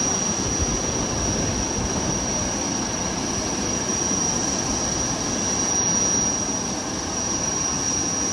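Jet turbine running: a steady rushing roar with a constant high-pitched whine on top.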